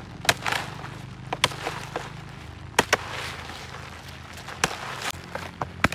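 A knife chopping into a dry, crumbly papery nest: about seven sharp knocks at irregular intervals, with crackling and crumbling between them.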